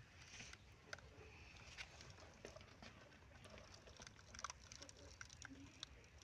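Faint patter of thin water jets squirting from pricked water balloons and splashing onto the other balloons and the plastic tub, with scattered small ticks.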